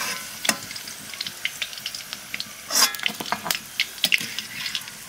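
Jackfruit and potato pieces frying in hot mustard oil in a kadhai: a steady sizzle with scattered crackles and pops, a couple of them louder.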